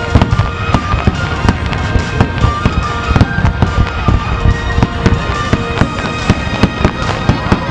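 Aerial firework shells bursting in rapid succession: a continuous barrage of sharp bangs, several a second, with music playing underneath.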